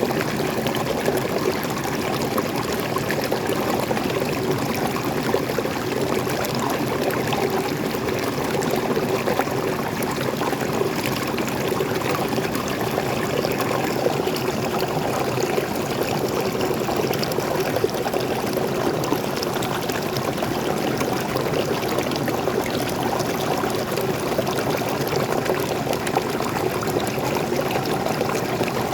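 Small waterfall and stream water pouring and splashing steadily, with many small splashes throughout.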